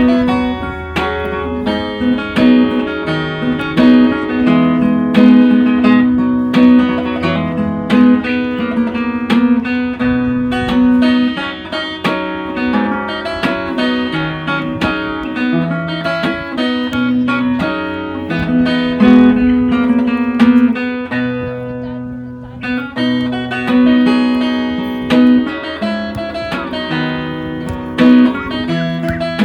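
Acoustic guitar music, plucked and strummed, with a steady rhythm and a brief drop in level about three quarters of the way through.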